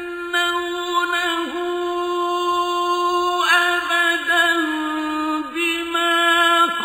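A man's voice reciting the Quran in the slow, melodic mujawwad style, drawing out long ornamented notes that waver in pitch. Each note is held for one to two seconds before a short break.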